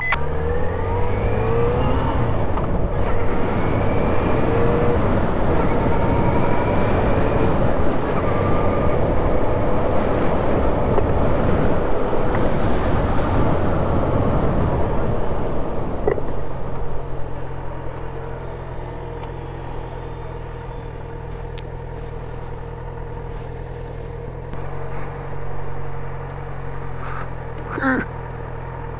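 Motorcycle engine pulling and shifting under way, its pitch rising and falling, with wind noise over the helmet microphone. About 17 seconds in it drops to a steady idle, with a short rising squeal near the end.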